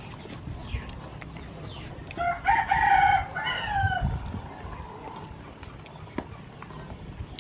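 A rooster crowing once, a single pitched call of about two seconds in the middle that drops in pitch at the end.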